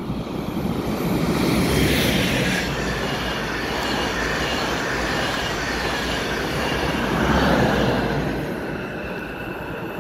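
Electric passenger train running through a station at speed: a rushing rumble of wheels on rail with a thin high whine over it. It swells to its loudest about two seconds in and again late on, then fades as the train draws away.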